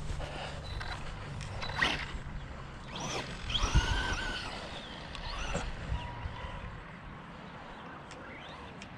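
ARRMA Big Rock 3S RC monster truck driving over grass, its electric motor running with pitch glides as the throttle changes. A thump comes about four seconds in.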